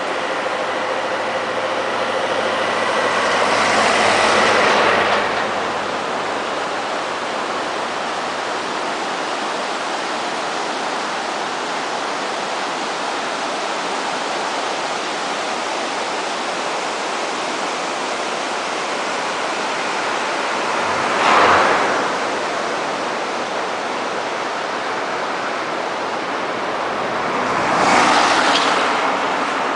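Fast-flowing river rushing with a steady roar, swelling louder three times: about four seconds in, about two-thirds through, and near the end.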